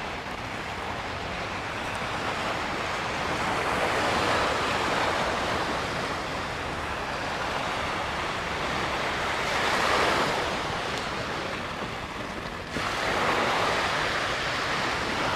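Sea surf washing onto a sandy beach, swelling and easing as the waves come in, a louder surge about ten seconds in.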